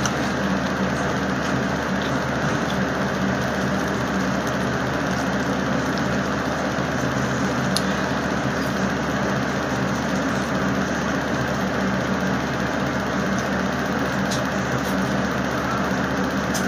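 Steady mechanical hum and hiss, even throughout, with a couple of faint clicks.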